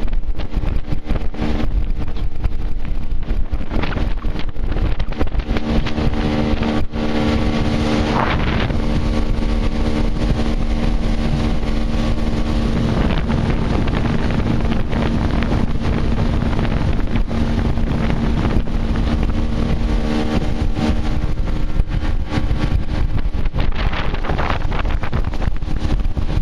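Small aluminum fishing skiff's motor running steadily at speed, with wind rushing over the microphone.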